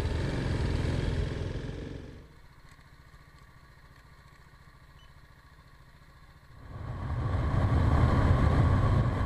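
TVS Apache RR 310 motorcycle's single-cylinder engine running on the move, heard loud for about two seconds, then dropping to a faint low sound for about four seconds, then rising again to its loudest as the bike rides at highway speed.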